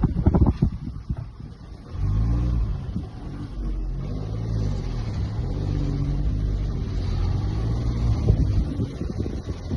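Mahindra XUV 3XO driving on a hill road with a rattle: sharp knocking clatter in the first second and again near the end. From about two seconds in, the engine hum rises and falls in pitch under load.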